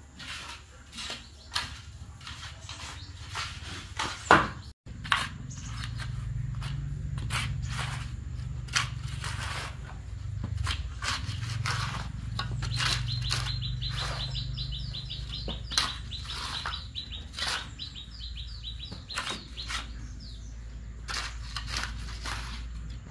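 Scattered clicks and knocks from handling things, over a low steady hum. Partway through, a bird gives a rapid run of short chirps for about three seconds.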